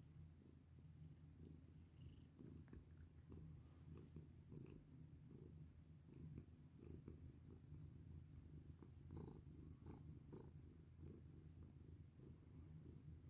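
Domestic cat purring softly and steadily while being stroked, with a few faint rustles and ticks.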